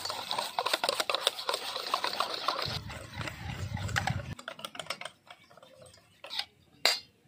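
Cake batter being beaten with a metal utensil in a steel bowl: rapid, continuous clicking of the utensil against the bowl that stops about five seconds in, followed by a couple of single clicks.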